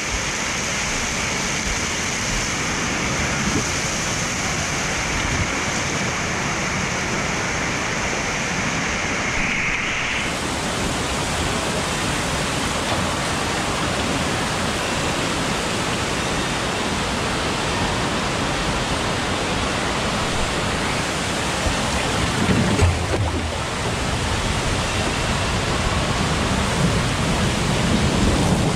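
Steady loud rush of water, like a waterfall: spray in an indoor water play structure and water running down an open fiberglass flume slide, heard close up. The sound changes to an even rush about a third of the way in, and low rumbles come in twice in the last third as the rider slides through the flume.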